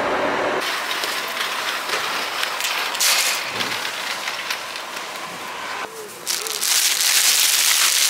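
Rustling and crinkling as fruit is handled at supermarket produce crates, louder near the end as bananas in plastic wrap are touched.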